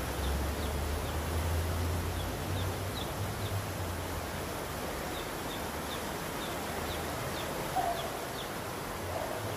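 Outdoor ambience: a steady low rumble with short, faint high chirps from small birds repeating every fraction of a second.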